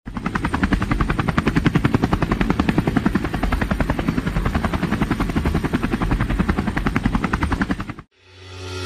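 Helicopter rotor chop: a fast, even beat of blades over a low rumble, cutting off suddenly about eight seconds in.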